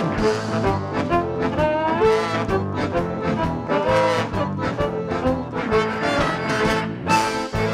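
Live band playing a brass-led instrumental passage, trombone and trumpet over drums and bass. Cymbal crashes come right at the start and again near the end.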